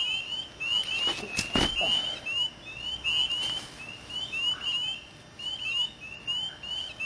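A night chorus of frogs: many short, high peeps, each sliding upward, overlapping at several a second. Two sharp knocks, from handling close to the microphone, come about a second and a second and a half in.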